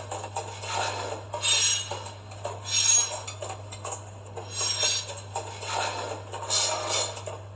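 N scale HXD3C electric locomotive model with a DCC sound decoder: a steady low hum under irregular metallic clinking and hissing bursts that come every second or two.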